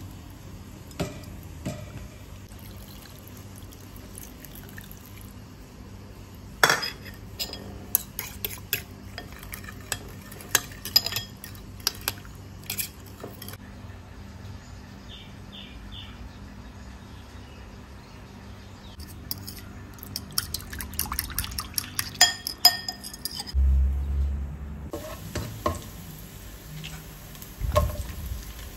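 Metal spoon clinking and scraping against a ceramic bowl while stirring sauce, in two spells of quick taps, with a dull thud near the end.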